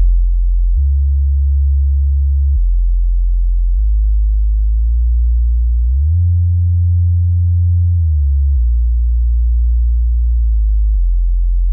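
Subwoofer test tones from a sound-check track: a series of steady, very low bass tones. The tones change pitch in steps every couple of seconds.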